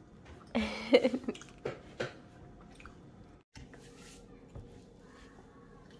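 A person coughing hard once, about half a second in and lasting under a second, followed by two light clicks.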